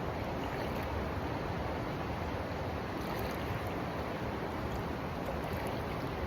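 Steady, even rushing noise outdoors, unbroken and constant in level, of the kind made by running water or wind.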